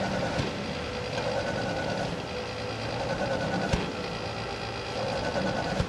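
Taylor T-450 wood stove chuffing like a steam train, the sign of a very hot fire with its air supply shut off, drawing air in surges. A couple of sharp clicks stand out, the loudest a little past the middle.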